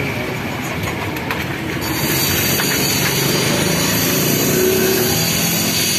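A motor engine running steadily, with a high hiss joining and the sound getting a little louder about two seconds in.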